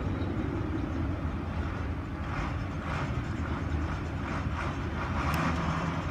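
Steady low rumble of the fuel truck's engine running. From about two seconds in, patches of rushing hiss rise over it.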